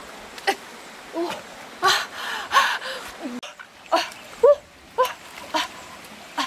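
A dog whining in a string of short rising-and-falling whimpers, about two a second, with brief rustling of leaves and branches between them.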